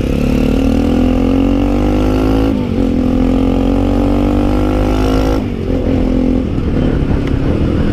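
Single-cylinder engine of a Bajaj Pulsar NS motorcycle accelerating under way, its pitch rising, dipping at a gear change about two and a half seconds in, and rising again. The throttle closes about five seconds in and the engine drops to a lower, uneven running.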